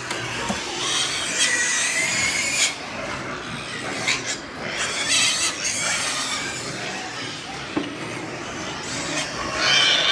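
Penned pigs squealing in several loud bursts.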